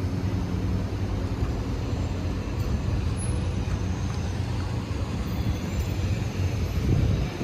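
Steady street traffic noise, with vehicle engines running close by and a low, even rumble.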